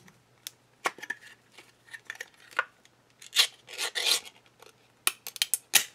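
Pull-tab lid of a tin of Spam with Bacon being peeled open by hand: a string of sharp clicks and short metallic scrapes, the longest scrapes in the middle as the lid tears back, then a quick run of clicks near the end.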